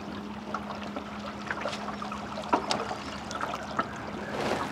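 Water lapping and trickling around a small fishing boat, with scattered light clicks and knocks and a steady low hum.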